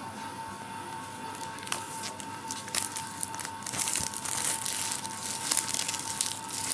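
Clear plastic shrink-wrap being torn and peeled off a smartphone's cardboard box, crinkling and crackling, with scattered crackles at first and denser crinkling from about halfway through. A faint steady high hum runs underneath.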